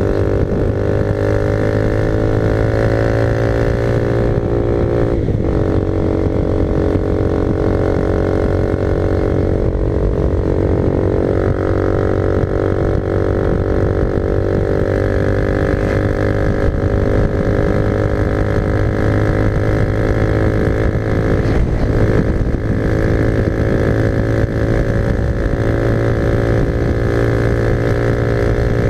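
Honda CB300R single-cylinder motorcycle engine running steadily at cruising speed, its pitch dipping and recovering briefly twice.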